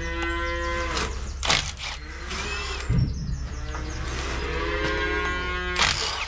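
Cattle mooing: two long calls, one at the start and one past the middle, with two short loud noisy bursts between them and a steady low hum underneath.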